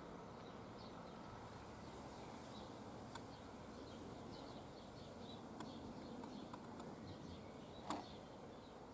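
Faint outdoor background hum with small birds chirping. A few sharp clicks, the loudest near the end.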